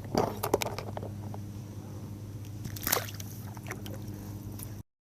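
Water sloshing and splashing with handling knocks on a fishing kayak, in two short bursts over a steady low hum; the sound cuts off abruptly near the end.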